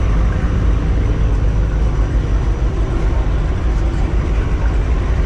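Straight-piped, cammed, Procharger-supercharged 5.4-litre V8 of a 1999 Mustang GT idling, a steady, choppy low rumble.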